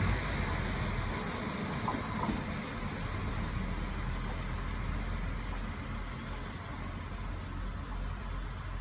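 Alstom Coradia LINT 41 diesel multiple unit pulling away, its engine and running noise fading steadily as it moves off into the distance.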